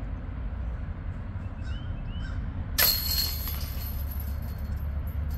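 A disc strikes the metal chains of a disc golf basket about three seconds in: a sudden metallic clash and jingle that rings on and fades, over a steady low rumble.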